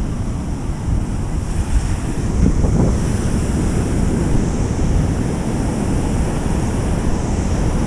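Rough surf breaking and washing up the sand, with wind buffeting the microphone in a steady low rumble.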